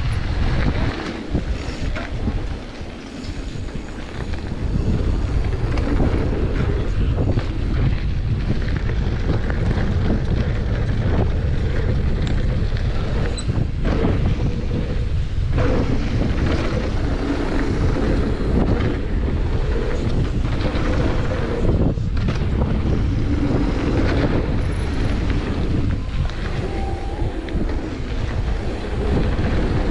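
Wind buffeting the camera microphone over a downhill mountain bike rolling fast on packed dirt, with tyre noise and scattered knocks and rattles from the bike over the bumps.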